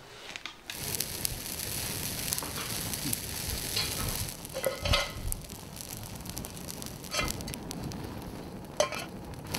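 Open fire burning with a steady rushing crackle from under a second in, with sharper pops about five, seven and nine seconds in.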